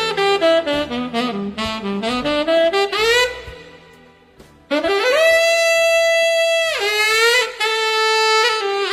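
Saxophone playing a solo melody: a run of quick notes, a brief dip, then one long held note of about two seconds that slides down at its end, followed by a few shorter notes fading away.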